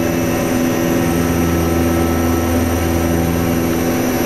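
Steady drone of the Antonov An-24B's two Ivchenko AI-24 turboprop engines and propellers, heard inside the cockpit: an even, unchanging hum of propeller tones over a constant rush of noise.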